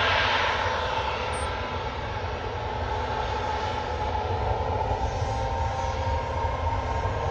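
Boeing 737 MAX 8's CFM LEAP-1B turbofan engines at full takeoff thrust: a steady jet roar with a whining tone in it. The roar dips a little about two seconds in, then builds again.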